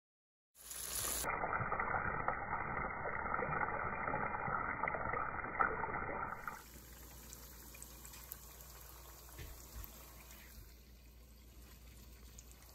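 Breaded crappie and tater tots frying in hot peanut oil in a stovetop pan, a dense crackling sizzle. About halfway through it drops to a faint hiss with a few small pops.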